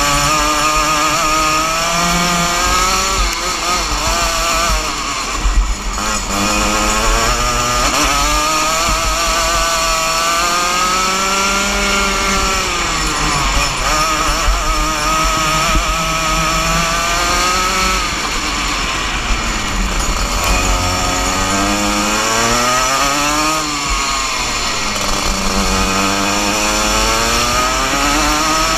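Rotax Junior Max 125cc two-stroke kart engine at racing speed, its pitch rising as it accelerates and dropping as it slows for the corners, over and over.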